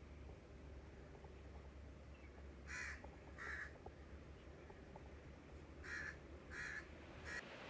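Crow cawing: two harsh caws about three seconds in, then three more in quick succession near the end.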